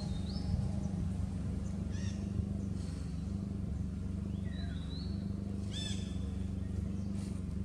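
A few short, high chirping animal calls, one rising, over a steady low hum.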